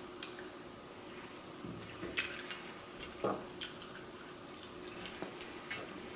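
Wet mouth sounds of eating crispy fried buffalo chicken wings: soft chewing, lip smacks and a few short sharp clicks scattered through, over a faint steady hum.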